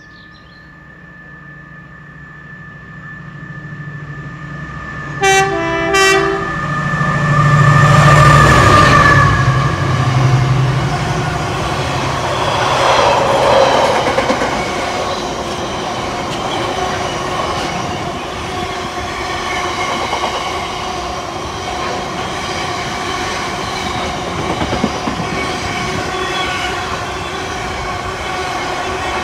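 Container freight train approaching and passing: the locomotive sounds its horn in two short notes about five seconds in. Its engine is loudest around eight seconds in as it goes by, then a long line of container wagons rumbles and clacks over the rails.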